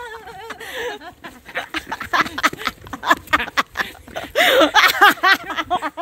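Women laughing and squealing in short, arched cries about two-thirds of the way in, after a rapid, irregular run of clicks and taps.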